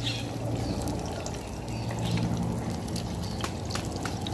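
An egg frying in hot oil in a nonstick pan on a portable butane stove: steady sizzling with many small pops and crackles.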